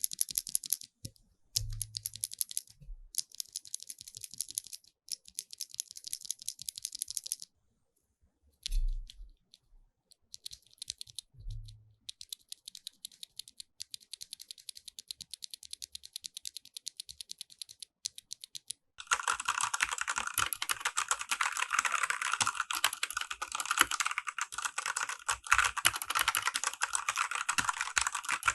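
Fast typing on mechanical keyboards, comparing a blue-switch keyboard with a linear red-switch Machenike K500. A short pause about a third of the way in holds a couple of low thumps. The typing turns much louder and fuller about two-thirds through.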